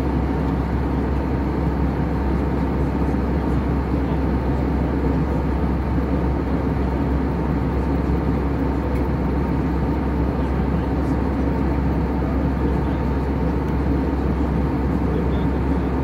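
Steady, deep rush of an airliner cruising, heard inside the cabin: engine and airflow noise at an even level throughout.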